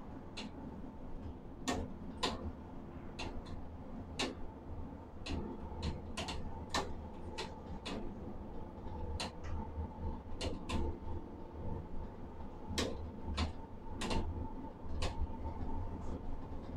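Overhead ladle crane running as it lifts a ladle of molten steel, heard from inside the crane cab: a steady low rumble and a faint steady hum, with irregular sharp clicks and ticks about once or twice a second.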